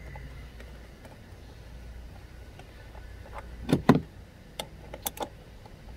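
Hand tools clicking and knocking on the engine cover's 10 mm bolt, a socket extension and ratchet. A quiet stretch, then two sharp knocks a little past halfway, followed by a few lighter clicks.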